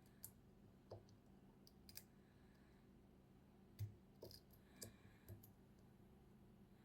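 Faint, irregular clicks and ticks of a lock pick and tension tool working the pins inside a KESO 8000 Omega² lock cylinder.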